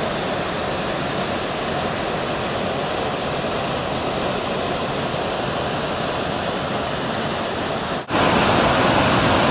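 Waterfall rushing over basalt rock: a steady, even roar of falling water. About eight seconds in it drops out for an instant and comes back louder.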